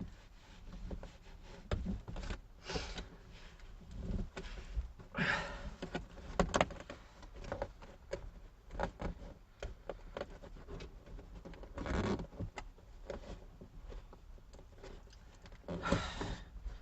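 Carpet edge being worked under plastic interior trim with a flat screwdriver: intermittent scraping and rubbing with light clicks and knocks.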